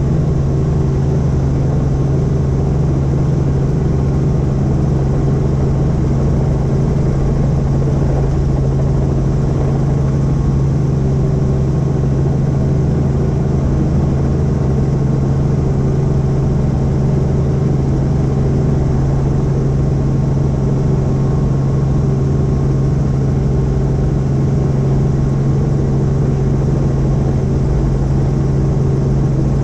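Helicopter running steadily in flight: a loud, unchanging drone built on a deep steady hum with higher overtones over a rushing noise.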